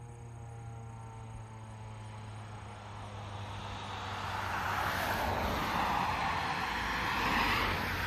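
A vehicle passing by, its noise swelling over a few seconds to a peak near the end and then fading. At the start, the faint falling tones of the ASC T-128 siren winding down after its test die away.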